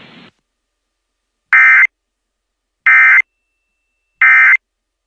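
Emergency Alert System end-of-message signal: three short, identical bursts of SAME digital data tones, about a second and a half apart, marking the end of the alert.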